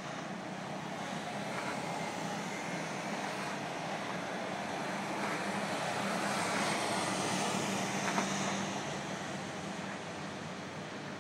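Steady urban road traffic noise from an expressway and the street below, swelling as a car passes at speed about six seconds in and easing off after.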